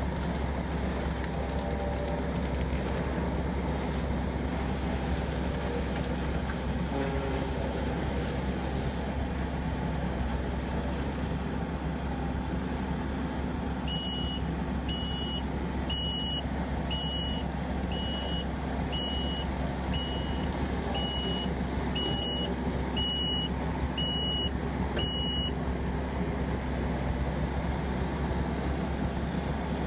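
Kubota SVL90-2 compact track loader's diesel engine running steadily under load while it works an AFE SS Extreme mulcher head. About halfway through, its reversing alarm sounds a dozen short beeps, about one a second, then stops.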